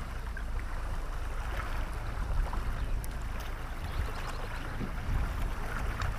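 Small waves lapping against a kayak hull, with steady wind rumble on the microphone and a few faint light ticks.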